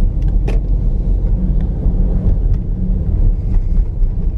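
Dodge Durango R/T's Hemi V8 and tyres on a snowy road: a steady low rumble while driving, with a short click about half a second in.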